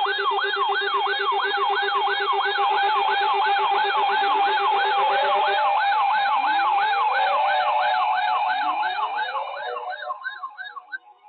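Electronic siren in a fast yelp, its pitch sweeping up and down about three times a second over steady tones. Slower rising wails join in from about halfway, and the sound fades out near the end.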